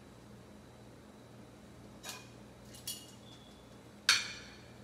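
Metal tongs clinking against plates and dishes: three short knocks, about two, three and four seconds in, the last the loudest, over a low steady hum.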